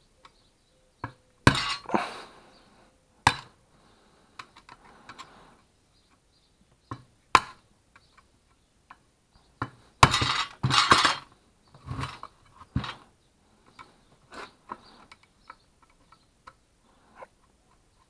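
Screwdriver clinking and scraping against the metal blade guard and arbor of an Iskra hand-held circular saw: scattered sharp metallic knocks, with a dense burst of scraping and clattering about ten seconds in.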